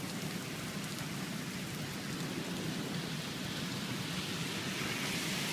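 Heavy rain from a thunderstorm pouring steadily, an even hiss that grows slightly louder toward the end.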